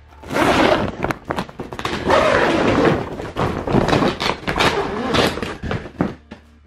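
Grow tent being handled close up: a side zipper pulled open and the fabric and crinkly reflective lining rustling, with a run of sharp clicks, knocks and thuds.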